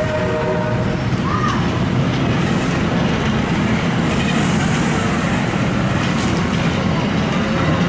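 MARC bilevel commuter coaches rolling past close by: a loud, steady rumble of steel wheels running on the rails.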